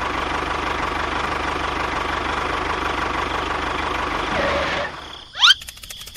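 Small engine of a homemade mini tractor running steadily, then cutting off abruptly about five seconds in. A brief, loud rising whistle follows, then faint rapid ticking.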